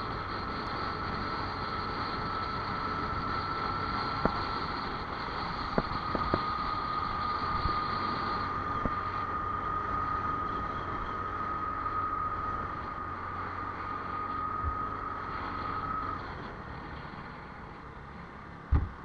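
A vehicle on the move with wind noise, carrying a steady high whine that stops near the end as the sound drops off. A few light clicks in the first half and a short knock just before the end.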